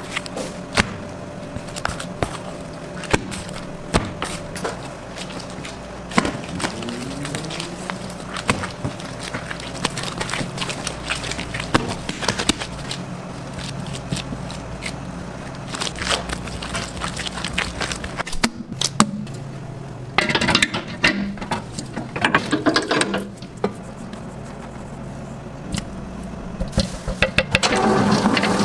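Bread dough handled by hand on a stainless steel work table: repeated sharp slaps, taps and scrapes over a steady machine hum. Near the end a stand mixer with a dough hook starts running.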